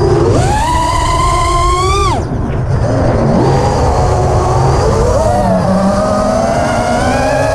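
FPV quadcopter's brushless motors and propellers whining with the throttle. The pitch climbs sharply just after the start, holds and rises a little, then drops steeply about two seconds in. It wavers for a few seconds, then settles and climbs slowly again, over a steady low rumble.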